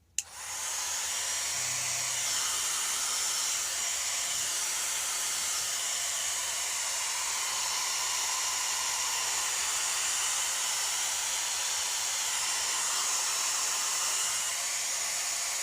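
Hair dryer running steadily on the tablet's edges to soften the screen adhesive; it switches on with a click just after the start.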